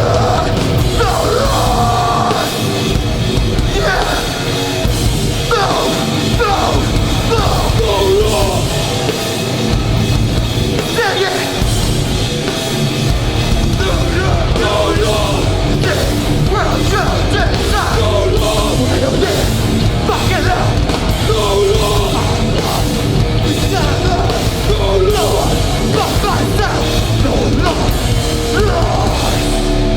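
A hardcore band playing live, with distorted guitars, bass and drums under shouted vocals.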